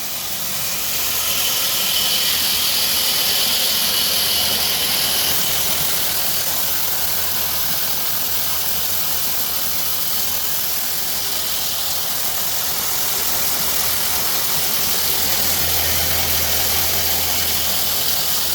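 Pellet mill machinery running with a steady mechanical hiss and hum. A thin high whine sounds for the first few seconds, and a deeper hum grows louder near the end.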